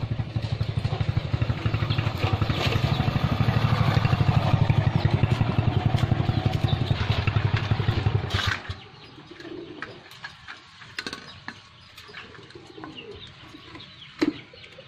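A small engine running with a steady throb, growing louder over the first few seconds and cutting off abruptly about eight and a half seconds in. After that come quieter scattered clicks and light bird chirps.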